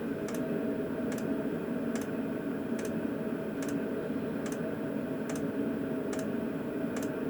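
Lavaner Pro 2 kW diesel air heater running at minimum power: a steady hum from its fan and burner, with its fuel pump ticking about once every 0.8 s. The pump's ticking is loud and stands out above the heater.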